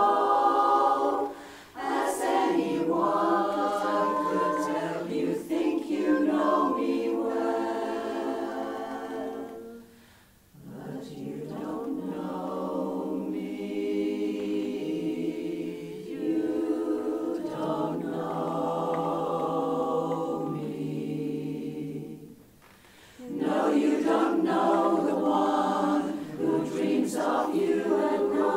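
Women's chorus singing a cappella, with short breaks between phrases about ten seconds in and again near the end, and a softer passage in between.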